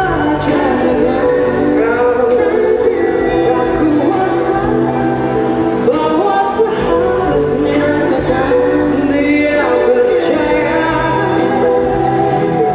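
Live jazz-pop band playing, with a woman singing lead over the band.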